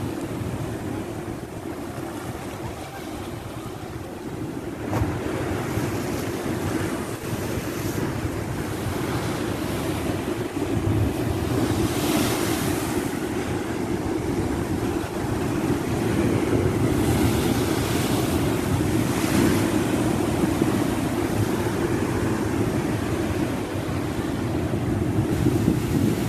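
Rough storm-surge sea: waves breaking and foaming surf rushing over a rock seawall, with strong wind buffeting the microphone. The hiss of the surf swells up a few times as bigger waves break.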